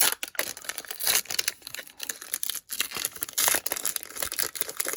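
Pokémon trading cards and a foil booster-pack wrapper being handled: irregular crinkling and rustling with quick snaps as the cards are slid and flipped.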